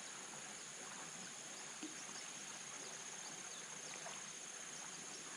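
Quiet outdoor ambience: a steady, high-pitched insect drone over a faint hiss, with a few faint short chirps.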